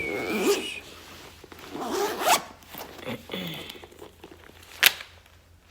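Zipper of a child's lunch bag being pulled, in two quick rising pulls, with some rustling and a single sharp click near the end.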